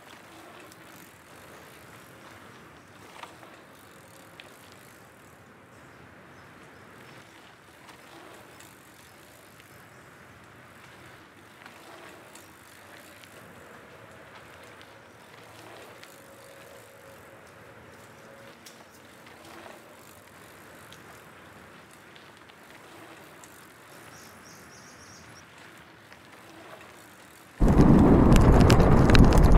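Mountain bike on a dirt forest trail: mostly faint outdoor ambience with a few light clicks and knocks. About 28 seconds in, a sudden loud rush of wind on the microphone with rattling as the bike is ridden down the trail.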